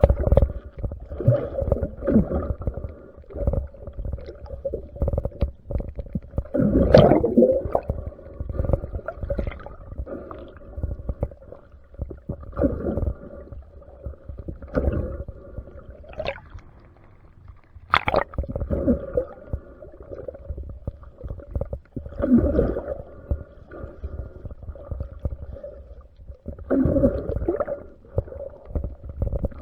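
Underwater sound during a spearfishing dive: muffled swishing and gurgling of water and bubbles over a steady hum, with two sharp knocks, about a quarter of the way in and just past halfway.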